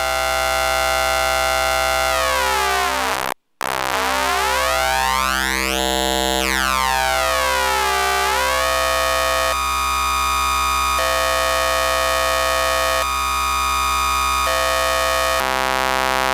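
Eurorack modular synthesizer tone: a bit-crushed triangle-wave oscillator through a resonant high-pass filter, held on one pitch while its knobs are turned. Its buzzy overtones sweep in and back out over several seconds. It cuts out for a moment about three and a half seconds in, and from about nine seconds in the timbre changes in abrupt steps.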